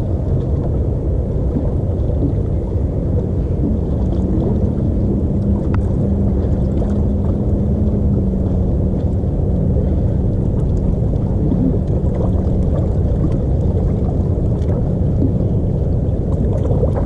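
Steady low rumble of wind on the microphone aboard a bass boat on open water. A low steady hum joins about three seconds in and stops about twelve seconds in.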